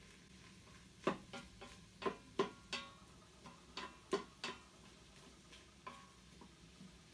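Wooden spoon stirring onions in an Instant Pot's stainless steel inner pot, knocking against the metal in about a dozen sharp, briefly ringing taps at an uneven pace, with a pause a little past the middle.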